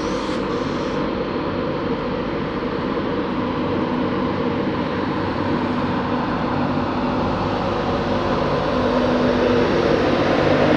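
Class 91 electric locomotive 91101 pulling away from the platform: a steady hum with several held tones, growing louder as the locomotive passes close by.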